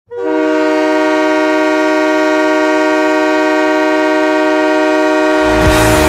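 Panther City Lacrosse Club goal horn sounding, a loud multi-note chord that starts abruptly and holds steady. Near the end the goal song comes in under it with drum hits.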